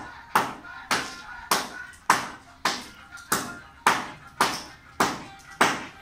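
Steady hand hammering on masonry, about two sharp, briefly ringing strikes a second at an even pace: a mason working brick or concrete with a hand tool.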